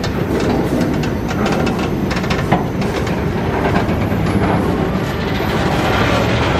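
Railway fuel tank wagons rolling slowly past close by. A steady rumble is broken by many sharp clicks and clatters of steel wheels on the rails.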